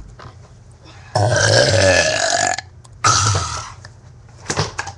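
A person burping: one long, loud belch of about a second and a half with a wavering pitch, then a second, shorter burp that fades out.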